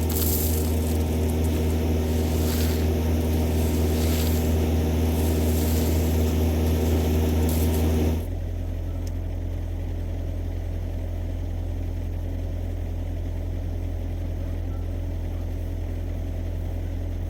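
Heavy-equipment diesel engine running steadily, at first louder with a hiss over it; about eight seconds in it suddenly drops to a quieter, steady run.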